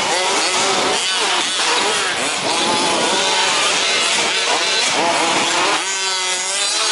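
Several 1/5-scale two-stroke petrol RC 4WD trucks racing, their small engines buzzing and revving up and down over one another. About six seconds in, one engine stands out clearly as it revs.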